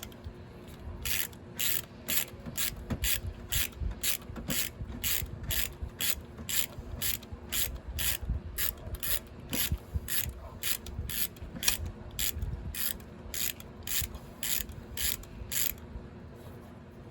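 Hand ratchet wrench clicking in quick, even strokes, about three a second, as bolts in the engine bay are turned; the clicking stops about a second before the end.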